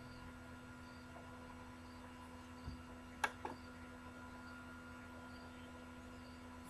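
Steady low electrical hum with faint steady tones, broken a little past halfway by a soft thump and then two sharp clicks of a computer mouse.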